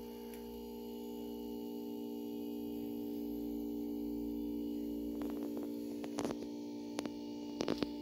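Steady electrical mains hum from the powered-up can crusher rig, a stack of even tones, with a few light clicks in the last three seconds.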